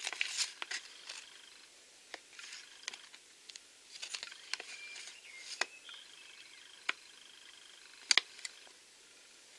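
Paper packaging and a folded paper checklist handled close to the microphone: light rustling with sparse sharp clicks and crinkles. The loudest crinkle is right at the start, and a pair of sharp clicks comes near the end.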